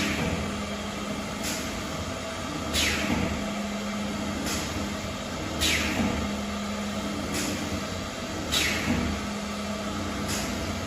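Woodworking machine running with a steady hum, broken by short falling hisses about every one and a half seconds, seven times over.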